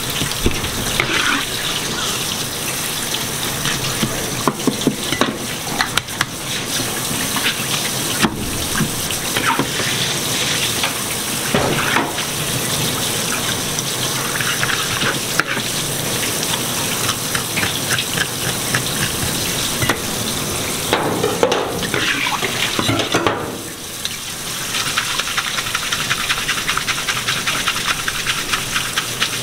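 Kitchen spray tap running in a steady stream onto a red sea bream on a plastic cutting board, with water splashing as gloved hands rub and rinse the fish. Scattered knocks and scrapes come from the fish being handled, and the splashing dips briefly about 24 seconds in.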